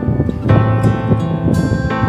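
Instrumental background music: a melody of separate, cleanly struck notes over a steady low accompaniment.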